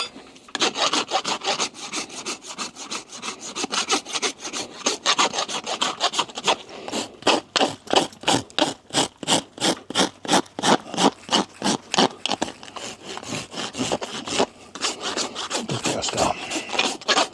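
Farrier's hoof rasp filed back and forth across a horse's front hoof wall in quick, even strokes, about two or three a second. This is the finishing rasp over the newly clenched shoe nails.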